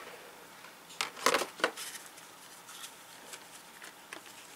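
Clear plastic packaging being handled and pulled apart as a model train carriage is unboxed: a cluster of crinkles and clicks about a second in, then scattered lighter clicks.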